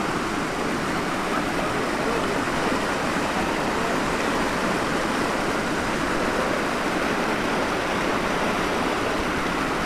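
Steady rush of a small mountain stream cascading down a rocky channel, an even, unbroken water noise.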